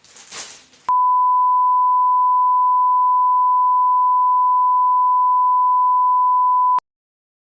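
A single steady electronic beep at about 1 kHz, a pure sine tone that switches on about a second in, holds unchanged for about six seconds and cuts off abruptly. Just before it, a brief rustle.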